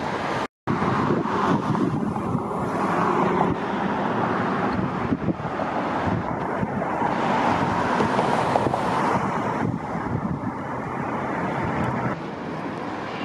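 Steady outdoor noise of passing road traffic with wind buffeting the microphone; the sound cuts out completely for a moment near the start.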